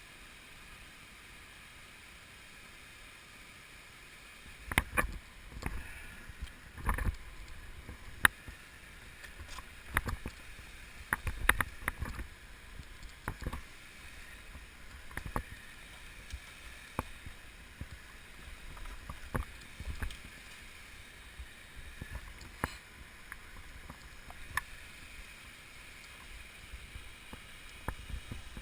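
Irregular knocks and bumps, starting about five seconds in and coming every second or two, over a faint steady rush.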